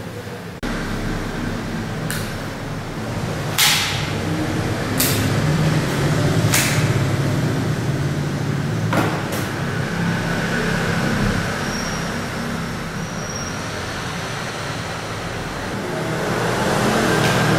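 Several separate sharp clicks from a handgun being checked and handled, the loudest about three and a half seconds in, over a steady low rumble.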